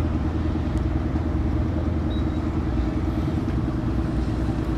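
An engine running steadily with an even low drone.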